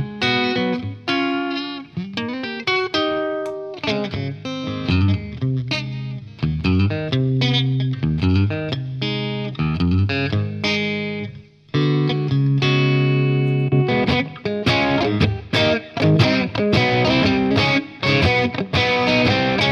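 Telecaster-style electric guitar played through an Origin Effects Revival Drive overdrive pedal into a valve amp: a run of picked notes and chords with light overdrive. The playing breaks off briefly a little past halfway, then resumes denser and brighter.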